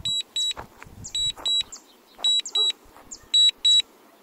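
Drone remote controller sounding its warning alarm: high-pitched double beeps repeating about once a second. This signals a weak or lost control signal while the DJI Mini 3 Pro flies itself back home.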